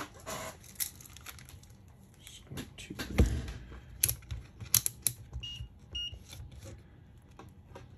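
A handheld digital multimeter being set down and handled on a workbench, with scattered knocks and clicks, the loudest about three seconds in. A little past halfway, the meter gives two short high beeps about half a second apart as its controls are pressed.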